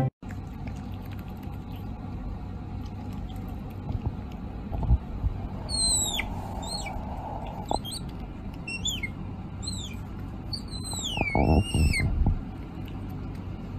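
Pet otter giving a run of high-pitched squeaks, each sliding down in pitch, several in quick succession from about six seconds in and once more near the end. A few low, dull thumps come in between.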